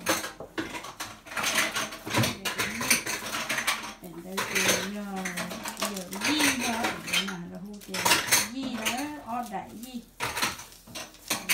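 Dishes and cutlery clattering and clinking at a kitchen sink as they are washed, with a voice talking or singing faintly underneath from about four seconds in.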